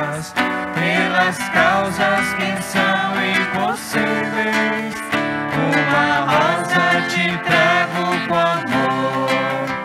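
A church hymn sung with acoustic guitar accompaniment.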